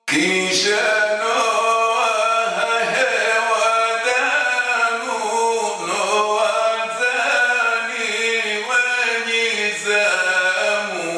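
A man chanting a poem in a melodic, sung recitation, the voice rising and falling from phrase to phrase.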